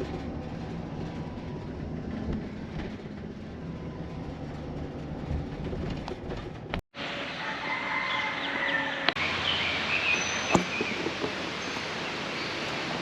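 Low steady road rumble from inside a moving vehicle. After a cut about seven seconds in, birds chirp and call over a steady rushing background noise.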